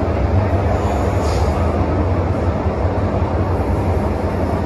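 Cabin noise inside a Hong Kong MTR Metro-Cammell M-Train electric multiple unit running between stations: a loud, steady low rumble of wheels on rail and the running gear.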